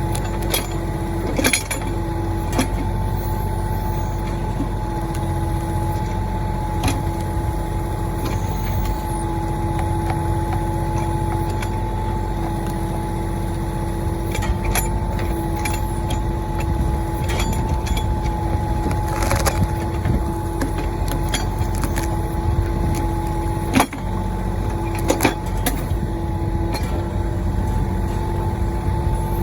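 Mahindra 1626 compact tractor's diesel engine running steadily while the backhoe digs at a stump, with a steady whine over the drone. Scattered sharp knocks and clanks come through now and then, the loudest a little before the end.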